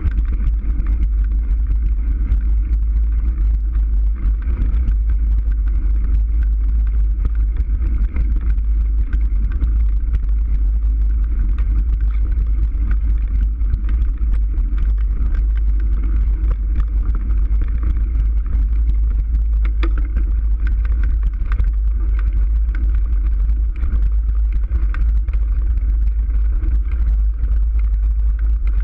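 Mountain bike rolling fast down a dirt trail, heard on a GoPro: a steady, loud low rumble of wind over the microphone, with tyre noise and faint clicks and rattles from the bike.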